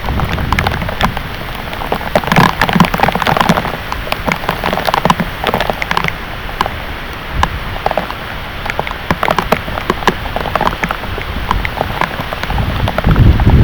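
Heavy thunderstorm rain pouring down, with many loud drops splattering on a hard surface close by. A low rumble builds near the end.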